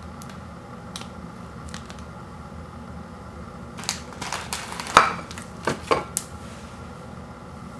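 Objects being handled: scattered light clicks, then a short run of crinkling and scraping sounds about four seconds in, the loudest a sharp click near five seconds, over a steady low hum.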